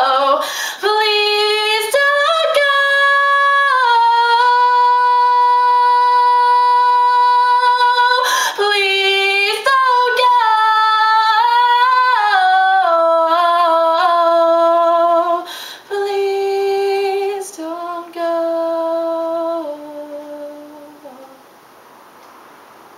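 A woman singing a cappella, holding long notes and gliding between them, the melody stepping down toward the close of the song. The voice grows quieter and stops about two seconds before the end.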